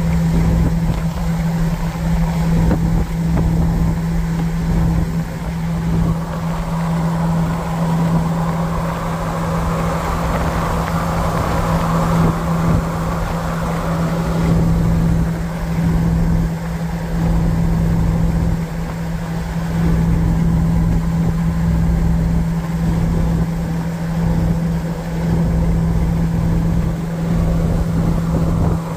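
Inside a vehicle's cabin at steady highway cruise: a constant low engine and exhaust drone with road and wind noise, unchanging throughout.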